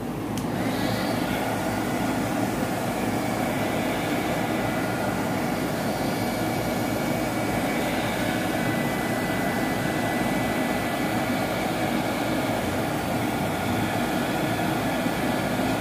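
Small handheld craft heat gun blowing steadily: a rush of air with a faint steady whine. It switches on right at the start and is drying alcohol sprayed onto wet paint and aging gel.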